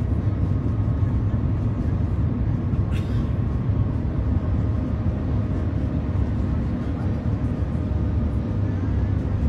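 Steady low rumble inside the cabin of the Shanghai Maglev train running at about 379 km/h, with a brief faint click about three seconds in.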